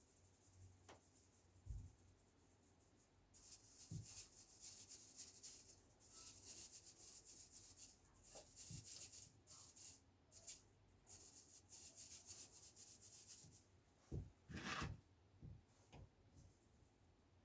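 Faint scratchy rustling in a run of short bursts through the middle, with a few soft knocks: loose ballast being worked into place over model railway track.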